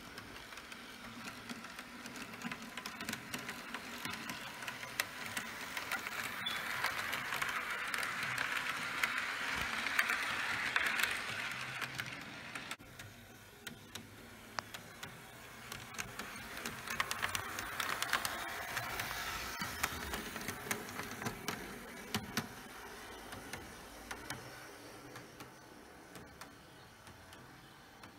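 Model freight train rolling on sectional track, its wheels clicking over the rail joints over a steady rolling rumble. The noise builds as the cars pass close, drops off sharply about halfway through, then swells again and fades.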